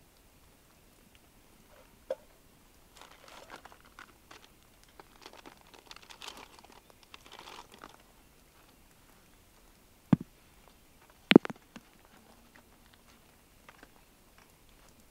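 Camp gear and packaging being handled: scattered light rustling and crinkling, then two sharp knocks a little over a second apart, the second the louder.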